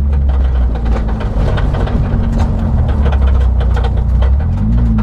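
BMW E36's engine running steadily at low revs, heard from inside the cabin, with a slight rise in pitch near the end.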